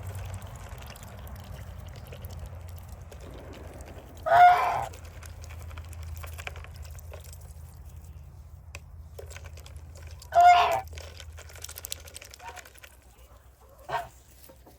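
Chickens calling: two loud, short calls about six seconds apart and a fainter, shorter one near the end, over a low steady hum.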